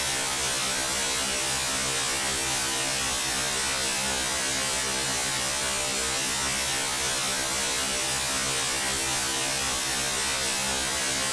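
A steady electrical hum with an even buzz and a constant hiss, unchanging throughout.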